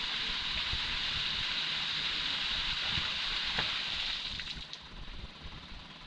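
Water jetting and splashing out of the open valve port at the foot of a PVC hydraulic ram pump, a steady rush of spray that falls away a little past four seconds in. The quieter flow of the stream carries on after it.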